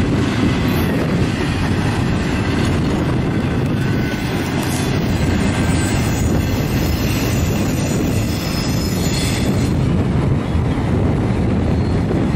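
Double-stack intermodal freight cars rolling past. The steel wheels on the rails make a steady, loud running noise.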